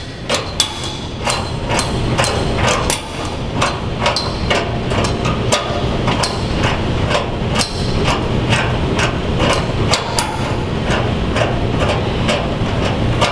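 Wrench tightening the nuts on a unit heater's threaded hanger rod: a run of sharp metallic clicks, a few a second, over a steady low hum.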